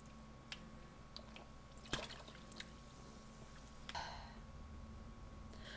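Faint swallowing and small mouth and glass clicks as a woman drinks from a glass, followed by a soft breath about four seconds in.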